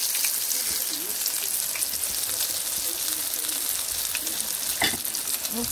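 Flour-dusted shark pieces frying in hot oil, a steady sizzle with fine crackling. A single sharp tap sounds about five seconds in.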